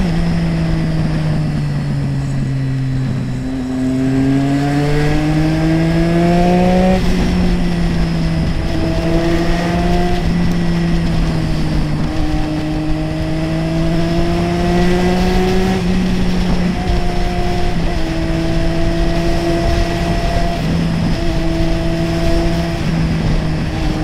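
Triumph Street Triple 675R's three-cylinder engine running under way with road and wind noise. Its pitch dips near the start, then climbs for a few seconds under throttle and drops abruptly. After that it holds fairly steady, with gentle rises and falls.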